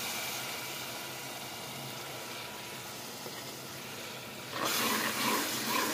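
Onion, tomato and spice masala sizzling and hissing in an aluminium pressure cooker over a gas flame as a little water is poured into it. The sizzle gets louder about four and a half seconds in.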